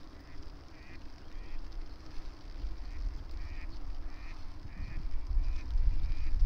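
A string of short, repeated animal calls, about one to two a second, over a low rumble of wind on the microphone that gusts stronger from about halfway through.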